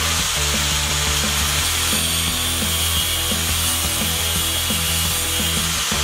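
Angle grinder running steadily on steel with a high, even whine, over background music with a steady beat.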